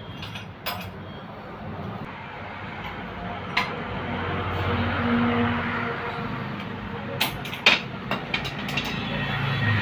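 Steady road traffic noise, with a few sharp clicks and clinks, several close together near the end.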